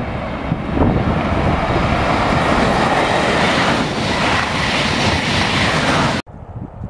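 SNCF TGV high-speed train passing close beneath at speed: a loud, steady rush of wheel, rail and air noise that swells about a second in and holds. It cuts off suddenly near the end, leaving a much quieter low rumble.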